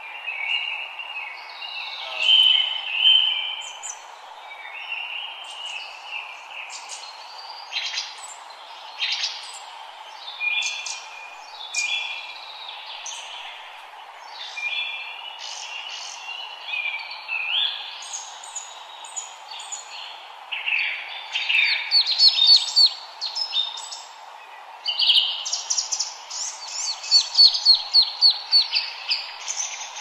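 Several forest songbirds singing at once, overlapping chirps, whistled phrases and rapid trills, over a steady background hiss. The busiest, loudest trilling comes in the second half.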